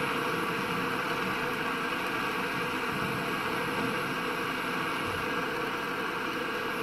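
Butane jet torch lighter burning with a steady hiss of its flame.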